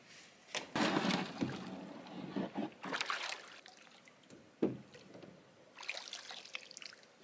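A canoe being handled in shallow lake water: water sloshing and splashing around the hull, with gear shifting and knocking inside it in irregular bursts and one sharp knock about halfway through.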